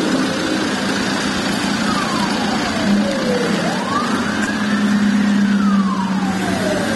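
Road traffic and engine noise with a wailing siren, its pitch rising and falling slowly and evenly, about once every four seconds.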